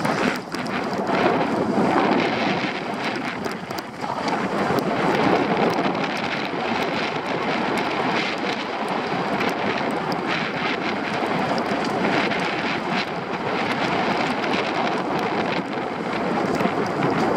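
Wind rushing over the microphone of a downhill skier, mixed with the steady scraping hiss of skis sliding on snow.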